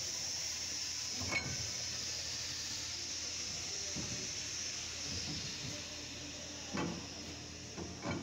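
Steady hiss with a few short knocks from rear-axle parts being handled: one sharp knock about a second in, a few duller thumps midway, and two more near the end as the axle shaft is slid into the axle housing.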